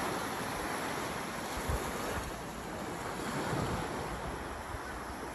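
Sea waves washing on a rocky shore, a steady rushing surf, with wind gusting on the microphone now and then.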